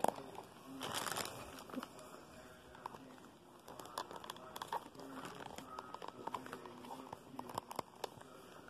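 Hands handling a plastic anime figure up close: rustling and crinkling, with scattered small plastic clicks and taps.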